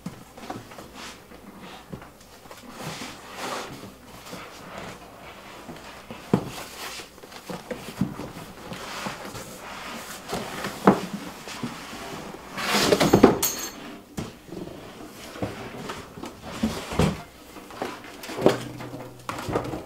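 Unboxing a Ryobi 21-gauge sheet-steel wall cabinet: cardboard flaps scraping and rustling, with irregular knocks from the steel cabinet as it is worked out of the box. There is a longer rustle about two-thirds of the way through, and plastic wrapping crinkles as it is pulled off the cabinet near the end.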